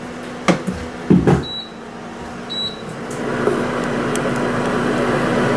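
A pot knocked down twice onto a glass-top electric hob, then two short electronic beeps from the hob's controls as it is switched back on. After that a steady whirring hiss builds up over a low hum as the hob heats.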